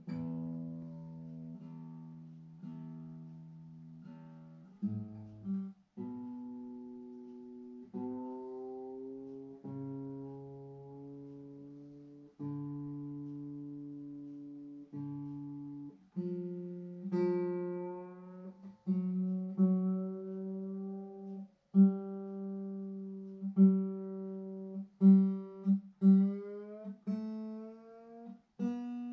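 Acoustic guitar being tuned: strings plucked one at a time and left to ring out, over and over, with a string's pitch creeping slowly upward in the second half as it is brought into tune, the plucks coming quicker near the end.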